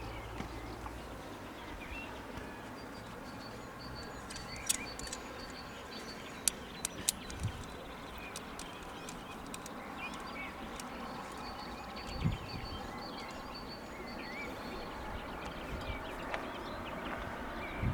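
Outdoor ambience with small birds chirping on and off, a faint steady high tone, and a few sharp clicks in the middle.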